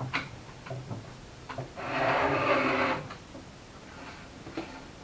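Metal mounting cradle of a twin-disc chain-drive differential scraping across a tabletop for about a second as the unit is turned round, after a few light knocks of handling.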